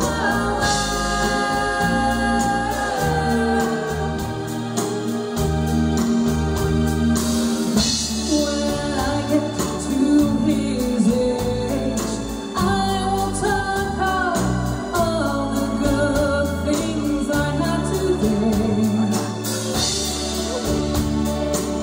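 Live pop band playing a slow song: drums, electric bass and guitar under a sustained organ-like keyboard, with a female lead voice carrying the melody.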